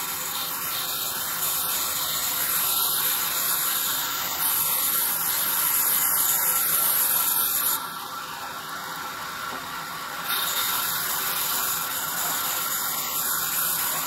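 Vertical band saw ripping a log into planks: a steady, hissing cut of the blade through the wood. Partway through it drops quieter for a couple of seconds, as the blade runs free between cuts, then rises again as the blade bites back into the log.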